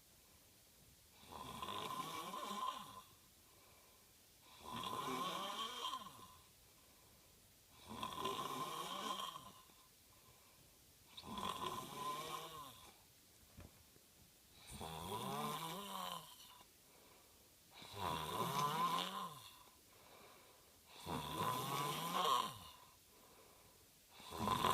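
Snoring: eight snores in a steady rhythm, one about every three seconds, each lasting a second or more with quiet between them.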